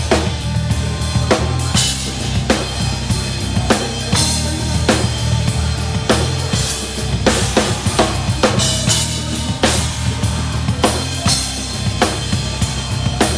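Rock drum kit played live and hard: kick drum, snare hits and cymbal crashes in a dense, driving pattern, over the band's steady low bass notes.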